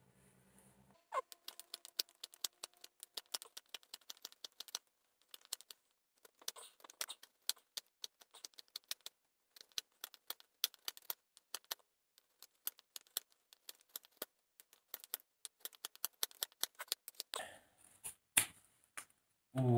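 A knife whittling a wooden blank: a quick, irregular run of short scraping cuts as shavings come off the wood, with a few sharper cracks near the end.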